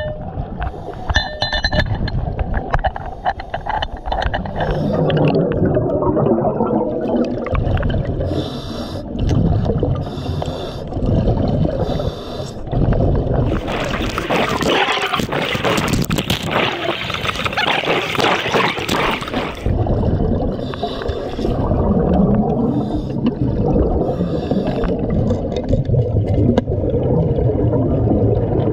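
Underwater gurgling and bubbling from a diver's helmet exhaust as the diver breathes, heard through an underwater camera. It becomes louder and brighter for about six seconds in the middle.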